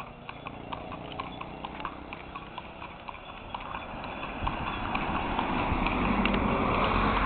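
Horse hooves clip-clopping at a walk, a run of sharp hoof strikes. A rushing noise grows louder over the second half.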